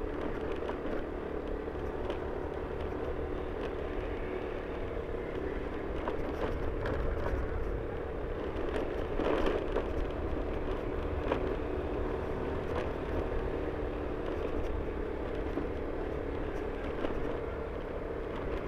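A vehicle driving along a rough road: steady engine and road noise with a low rumble and scattered faint ticks.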